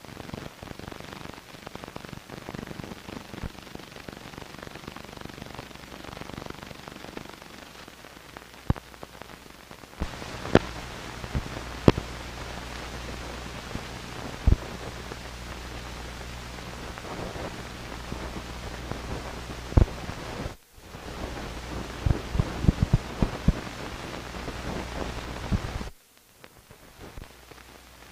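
Hiss and crackle of an old film print's soundtrack running on with no programme, peppered with sharp clicks and pops from dust and scratches. A low hum comes in about ten seconds in, and the sound drops out briefly around twenty seconds and again near the end.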